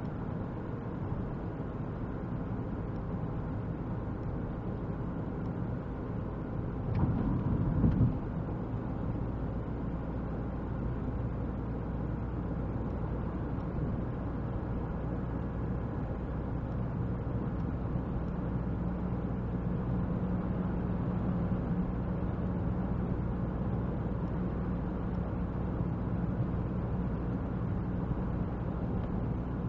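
A car engine running steadily, with a brief louder rumble about seven seconds in.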